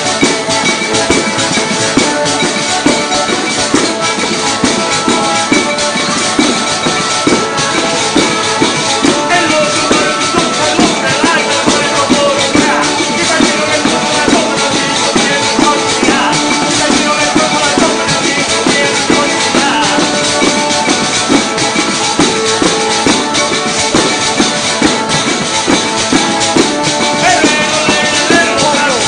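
Live folk music from a zampogna (southern Italian bagpipe) playing a melody over its steady drones, with a diatonic button accordion and tambourines beating a quick, even rhythm with jingles.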